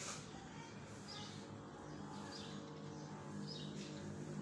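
A bird chirping faintly, one short high call about every second, over a low steady hum that grows louder about halfway through. A single sharp knock comes right at the start.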